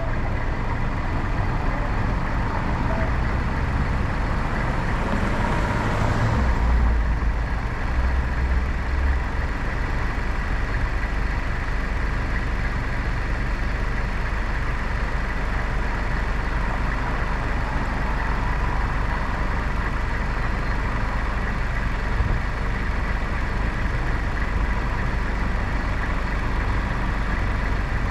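Car idling at a standstill, a steady low rumble, with cross-traffic vehicles passing. The loudest pass, with a deep rumble, comes about six seconds in and fades by about nine seconds.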